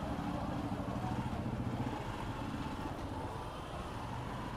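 Hero Xpulse 200 motorcycle's single-cylinder engine running steadily at low revs as the bike creeps forward.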